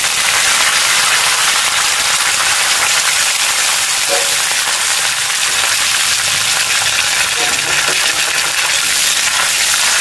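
Curry leaves frying in hot refined oil with panch phoron and dried red chillies in a wok, a loud steady sizzle of the tempering.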